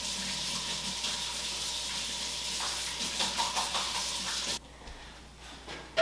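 Kitchen faucet running water into a farmhouse sink as a steady hiss, shut off sharply about four and a half seconds in. A single sharp knock follows at the very end as a lower cabinet door is opened.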